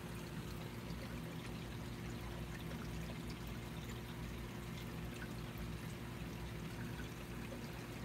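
Reef aquarium water circulation: water trickling and splashing steadily, with a low steady hum from the tank's pumps.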